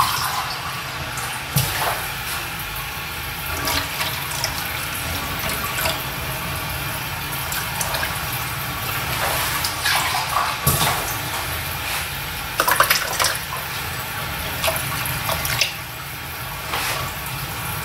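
Cold water being poured into a stainless steel pressure cooker around sealed glass jars, a steady running and splashing of water, with a few light knocks.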